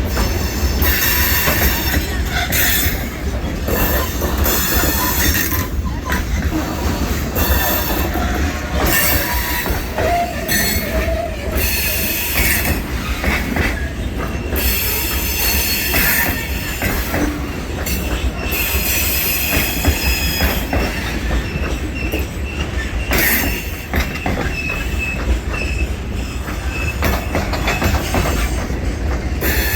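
Freight train cars of the DeQueen and Eastern Railroad rolling past, with a steady low rumble and repeated high-pitched wheel squeal that comes and goes over the rail.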